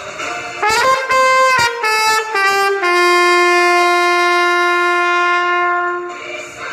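Solo trumpet playing a quick run of notes, then holding one long final note for about three seconds that stops about six seconds in.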